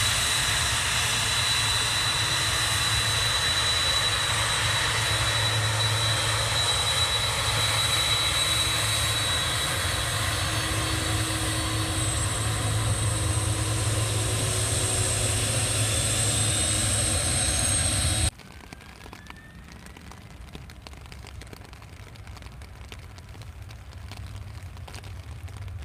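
Boeing 767's twin jet engines running at taxi power: a steady whine over a low rumble. It cuts off abruptly about 18 seconds in and gives way to a much quieter noise that slowly grows louder.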